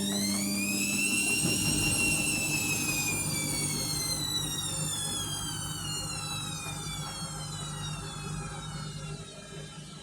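Overloaded 7 kg washing machine's motor and drum running at speed: a whine that rises for about two seconds and then falls steadily as the drum slows, over a low hum.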